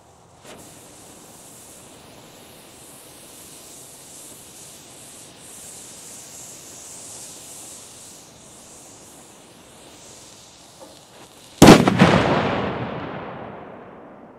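A firework burning with a steady hiss for about eleven seconds, giving off green light and smoke. Near the end it goes off with one very loud bang, which fades away over a couple of seconds.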